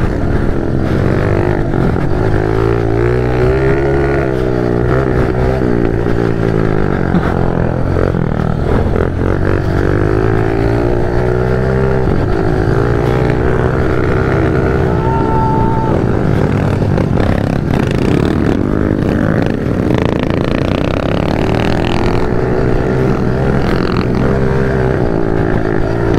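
Small single-cylinder pit-bike-size motorcycle engine, ridden close up, revving up and dropping back again and again as the bike is pushed round a dirt track.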